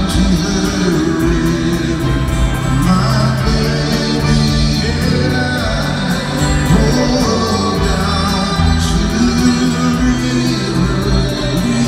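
Live rock band playing a slow song with a sung vocal line over held chords from guitar, piano and drums, heard from the stands of a large arena.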